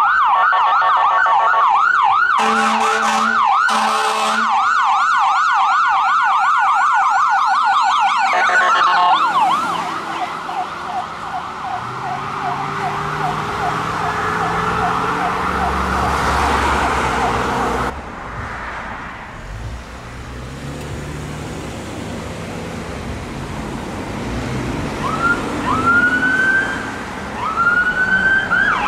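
Ambulance siren on a fast yelp, cut across by two short horn blasts a few seconds in, then slowing and fading as the ambulance moves away. Near the end a second emergency vehicle's siren winds up in a few rising wails and goes into a yelp.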